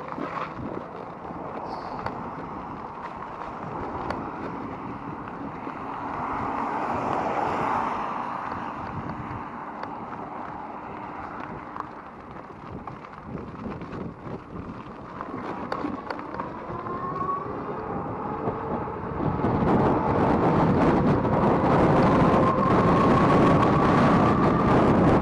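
Wind buffeting the microphone of a chest-worn camera while riding an electric bike, turning much louder about three-quarters of the way through. A thin whine rises slowly in pitch over the last several seconds.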